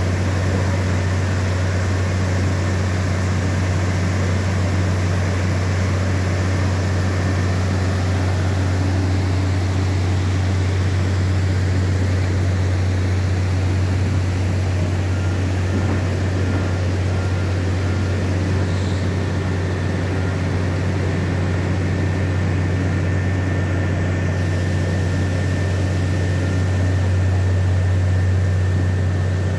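Heavy flow of water gushing out of a coal face and cascading over rock: a steady, unbroken rush with a constant low rumble under it.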